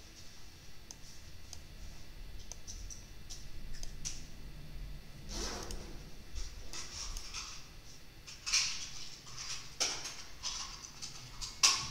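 Scattered clicks and soft rustling bursts from someone working at a computer, over a low hum, with a sharper click near the end.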